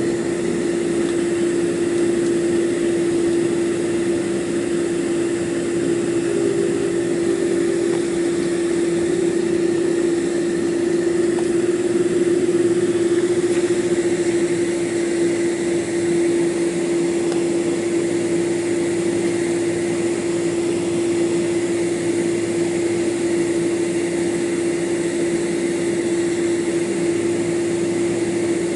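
Airliner's jet engines at takeoff power heard from inside the cabin during the takeoff roll: a loud steady drone with a strong held tone, over a broad rushing hiss.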